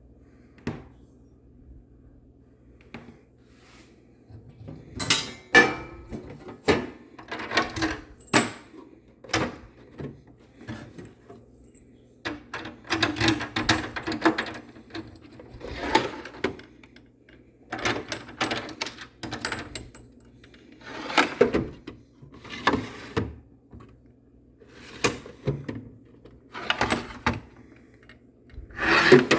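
Drawers of a vintage seven-drawer tool box being slid open and shut and handled, with irregular clicks, knocks and short scrapes.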